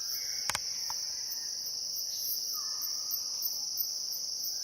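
Steady, high-pitched drone of forest insects. There is a single sharp click about half a second in and a couple of faint falling calls behind it.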